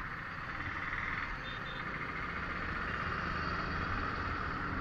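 Motorcycle riding along in city traffic: steady engine and road noise, with two faint short high beeps about a second and a half in.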